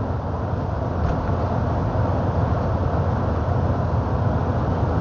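Steady low engine drone and road noise heard inside a moving truck's cab.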